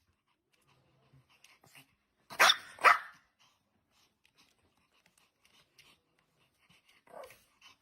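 A dog barking twice in quick succession, then a single fainter bark near the end.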